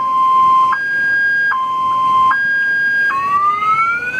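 Car alarm sounding, set off as the car is being washed: a two-tone hi-lo siren switching pitch about every three-quarters of a second, then about three seconds in changing to a rising whoop.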